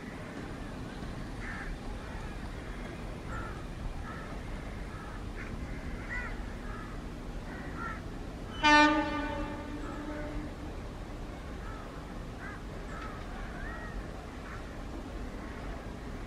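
Indian Railways locomotive horn sounding one steady blast of about a second and a half, about halfway through. Birds call faintly in the background.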